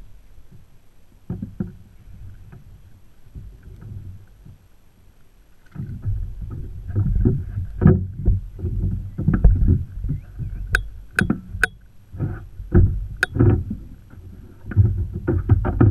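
Knocks, thumps and rattles on a plastic sit-on-top kayak's hull as the angler shifts about playing a fish on a bent rod, light at first and much busier from about six seconds in. Four sharp clicks come in the second half.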